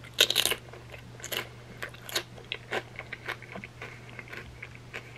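A crisp barbecue potato chip heavy with creamy dip being bitten into: a loud crunch just after the start, then close-up chewing with scattered crunches.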